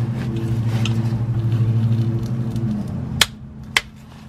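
A steady low hum from an unseen machine fades out about three seconds in. It is followed by two sharp metallic clicks about half a second apart, from the wrench on the differential drain plug that has just been torqued to 33 ft-lbs.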